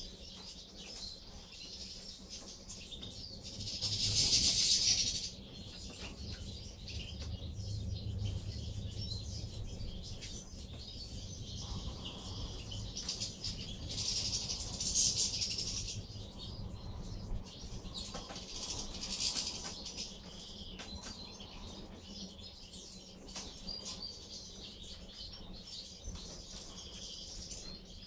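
A flock of European goldfinches twittering and chirping continuously, with louder bursts about four, fifteen and nineteen seconds in.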